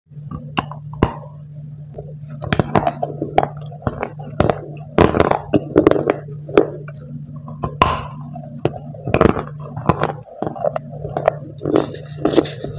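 Dry clay being bitten and chewed in the mouth, with irregular sharp cracks and crumbly crunches, over a steady low hum.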